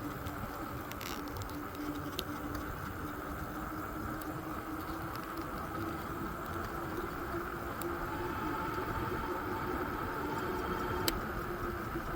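A steady motor hum with a slightly wavering low tone, and a few faint clicks.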